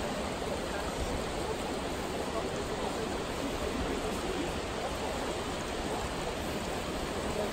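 Shallow, fast river flowing over rocks: a steady rush of water.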